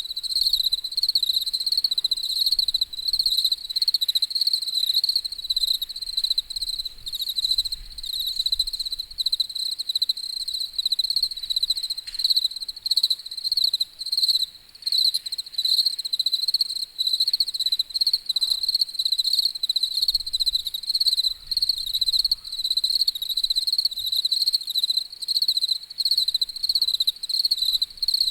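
Crickets chirping in a steady, high-pitched, rapidly pulsing trill that does not let up.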